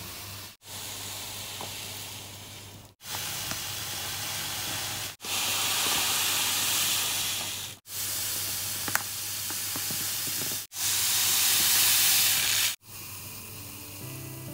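White granulated sugar pouring into a glass jar, partly through a plastic funnel: a steady, grainy hiss in about six short takes, each cutting off abruptly. It is loudest in the middle take and near the end.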